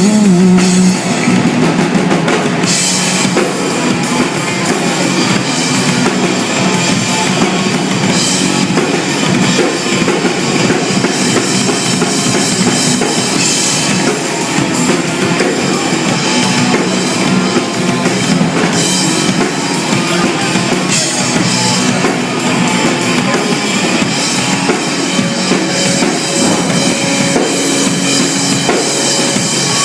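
Live rock band playing an instrumental stretch with no singing, driven by a drum kit's bass drum and snare.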